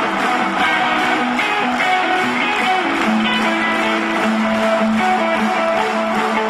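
Live rock band with an electric guitar, a sunburst Stratocaster, playing a melodic lead line of long held notes over the band.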